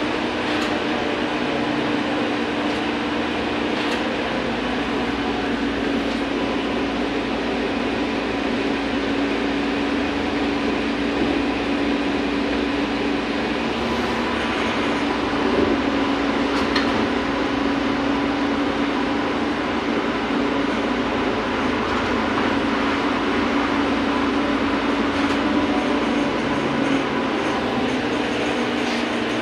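Inside a VMZ-100 trolleybus under way: a steady low hum over road and body rattle noise. The hum breaks off briefly about halfway through and again near the end.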